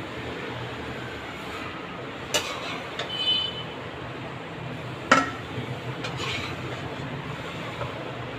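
A metal spoon clinks and scrapes against a pan and a steel pot while masala is spooned onto a layer of boiled rice. There are a few sharp clanks: one about two seconds in, a short ringing one about three seconds in, and the loudest about five seconds in. A steady low hum runs underneath.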